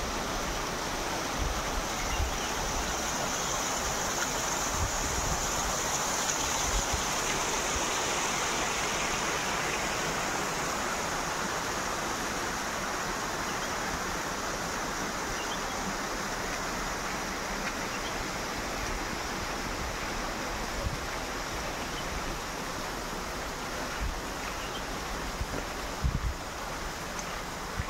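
Steady rush of running water, with a few short low thumps now and then, the clearest near the end.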